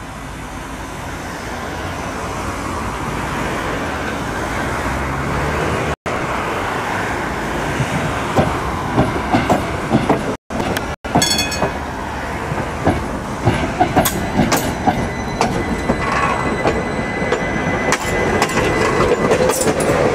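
Articulated tram running toward the listener, its rumble growing as it nears. From about eight seconds in, the wheels clatter over rail joints in a run of sharp clicks. The sound cuts out briefly three times.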